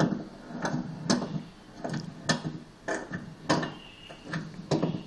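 A series of sharp knocks or clicks, roughly one to two a second at uneven spacing, over a faint steady background.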